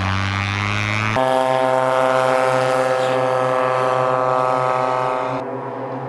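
A single-engine ski plane's piston engine and propeller running at high power, a loud steady drone. The drone changes abruptly to a higher, fuller tone about a second in and drops in level near the end.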